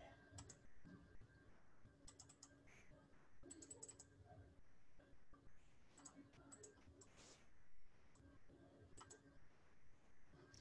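Faint clicks of a computer keyboard and mouse, in short clusters of a few quick keystrokes every second or two.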